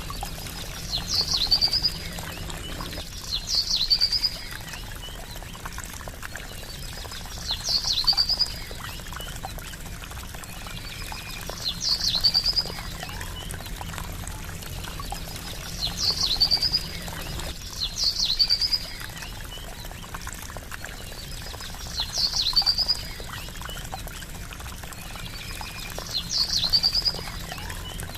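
Steady trickling water, with a bird's short, high call, a sharp note running into a quick trill, recurring eight times every few seconds over it.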